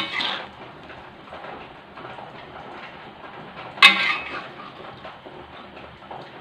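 Spatula stirring and scraping stir-fried vegetables around a wok, with a sharp clank of the spatula against the wok at the start and another about four seconds in.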